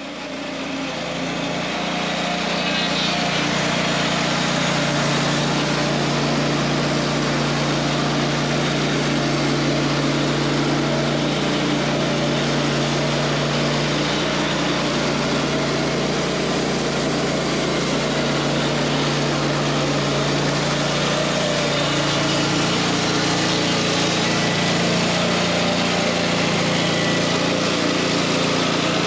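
WoodMizer LT40 Wide portable band sawmill running steadily, its engine humming. It fades in over the first few seconds.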